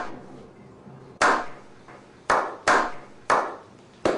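Slow hand-clapping: single sharp claps about a second apart, each with a short echoing tail, getting quicker near the end.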